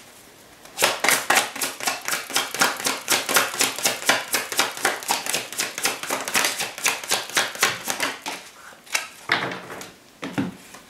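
A tarot deck being shuffled by hand, a fast, even run of card clicks that starts about a second in and stops about two seconds before the end, followed by a few softer card sounds.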